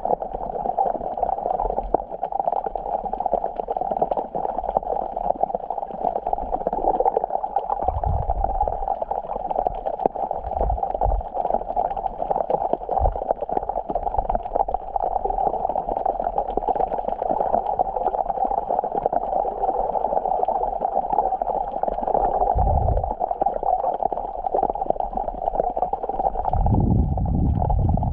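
Sea water washing and gurgling at the shoreline in a steady rush, with a few low thuds, the longest near the end.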